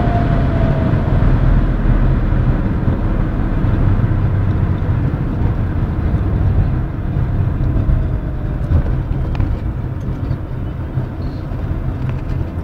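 Cabin noise of a Fiat Coupe 20V Turbo slowing down from high speed: a steady rush of wind, tyre and engine noise with a deep rumble, fading gradually as the car loses speed. A faint whine falls in pitch at the start and again about halfway through.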